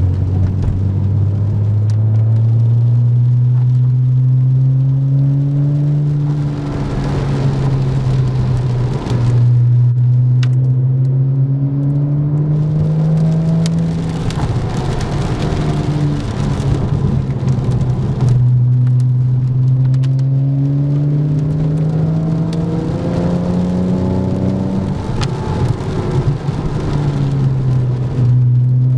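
Sports car engine heard from inside a following car's cabin, climbing in pitch as it accelerates and dropping back as it shifts or lifts off, several times over. Rain and wet tyres hiss underneath.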